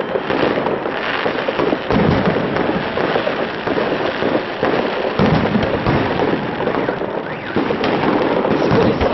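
Fireworks display going off continuously: a dense run of bangs and crackling bursts from aerial shells, with several louder booms.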